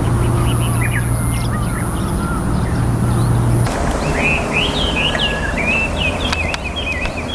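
Small songbird singing a quick run of varied chirps over a steady low background rumble, with scattered fainter chirps before it; about halfway through, the rumble drops off abruptly.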